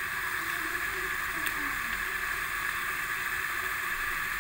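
Tempe simmering in a wok of palm-sugar liquid, a steady bubbling hiss.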